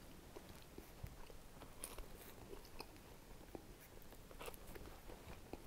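Faint biting and chewing of a slice of thick rising-crust pepperoni pizza, heard as scattered small clicks and smacks.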